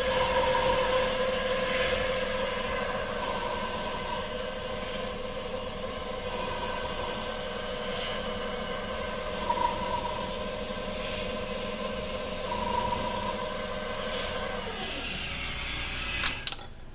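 Small CNC lathe's spindle running with a steady whine, then winding down with a falling pitch about fifteen seconds in. A couple of sharp clicks come just before it goes quiet.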